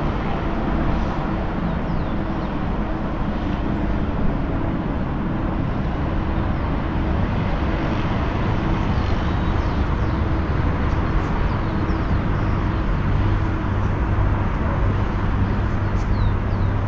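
Steady city traffic noise with a low, even hum, and a few faint high chirps near the end.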